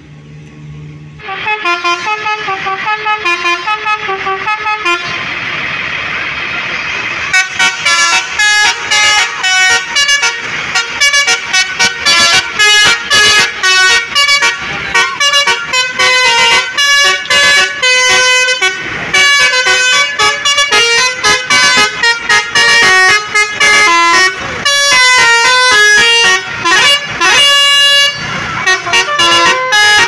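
Tour bus 'telolet' air horn: a DAV basuri multi-trumpet air horn on the roof playing a melody. A few short notes about a second in, a held chord around five seconds in, then a fast tune of short, clipped notes.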